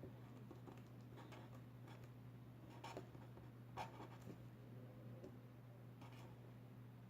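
Faint scratching of a pen writing on paper, in short separate strokes with a few slightly louder ones.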